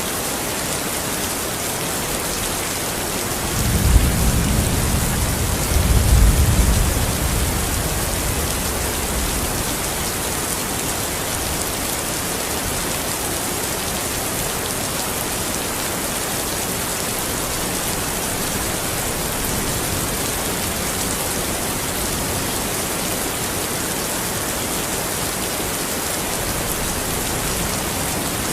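Steady heavy rain falling, with a low roll of thunder about four seconds in that swells twice and fades out a few seconds later.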